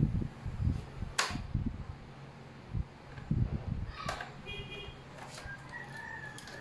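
A boombox's cassette deck clicking as its keys are pressed and the tape is ejected: two sharp clicks about three seconds apart, after a few soft handling bumps. Near the end a rooster crows in the background.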